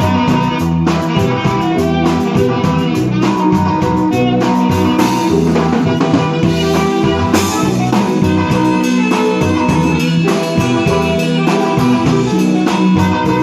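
Band music with guitar, bass and a drum kit playing a steady beat, without singing.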